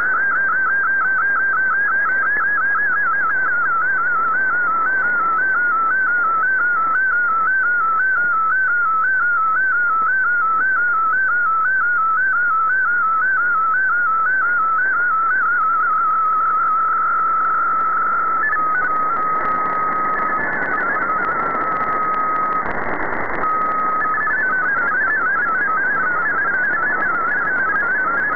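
Digital picture transmission received over a shortwave AM broadcast: a single tone whose pitch wavers up and down line after line as the image is sent in MFSK picture mode, over receiver static. About two thirds of the way in the picture ends and the tone holds steady, then MFSK32 text data starts as a quick stepping between tones.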